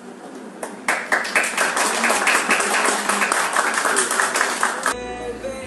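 Audience applauding for about four seconds, cut off abruptly near the end, where music starts.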